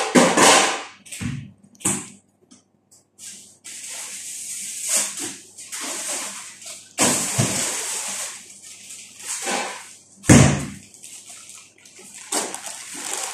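Water running steadily for a few seconds, stopping briefly and running again, with scattered knocks and clatter and one heavy thump about ten seconds in.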